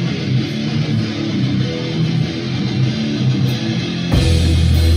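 A live heavy rock band: an electric guitar plays on its own, then about four seconds in a heavy bass comes in and the music gets louder.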